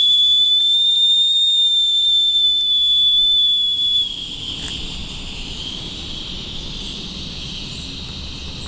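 Steam whistle on the small horizontal brass boiler of a RETROL model beam steam engine, blown with steam from the boiler: a steady high-pitched whistle for about four seconds that drops suddenly to a breathy hiss of escaping steam.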